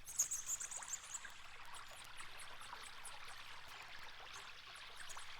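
Vinyl record surface noise: a steady crackle with scattered sharp pops and clicks over a faint low hum.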